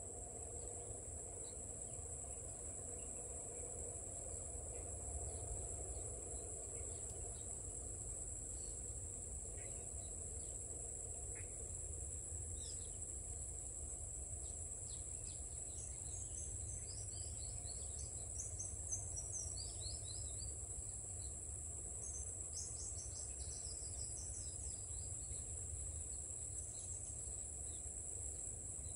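Insects giving a steady, high-pitched drone. About halfway through, a bird calls two quick runs of short notes falling in pitch.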